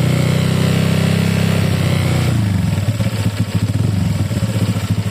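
Honda Click 150i scooter engine held at raised revs, then dropping back about two seconds in to an idle with an even pulsing beat. The engine's noise is shown as a problem.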